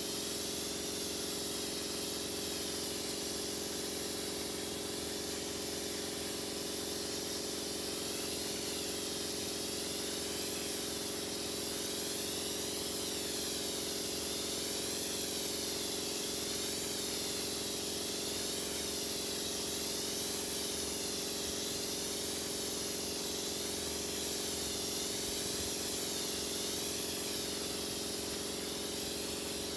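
Spray gun hissing steadily as finish is sprayed onto the wooden drum, with a steady machine hum underneath.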